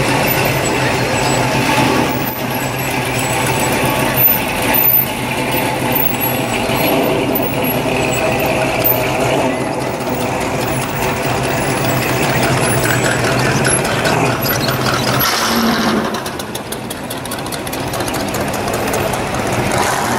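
Classic cars driving slowly past one after another, their engines running steadily at low speed: a C3 Chevrolet Corvette, then a flame-painted 1930s hot-rod sedan, then a lifted square-body Chevrolet pickup. The engine sound dips about sixteen seconds in, as one vehicle moves off and the next comes up.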